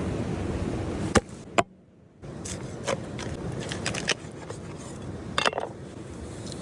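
Scattered sharp knocks and clicks over steady background noise, the loudest about a second in, just after, and near the end, with the sound briefly cut out near two seconds.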